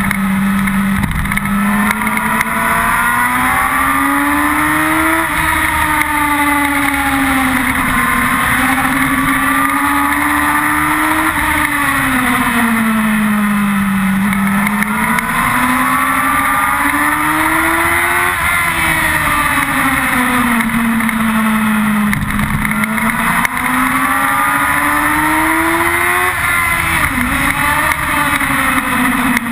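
Yamaha R6 sportbike's inline-four engine at speed on track, its pitch climbing and falling again four times as the bike accelerates along the straights and slows for the corners. A steady rush of wind over the onboard camera runs beneath it.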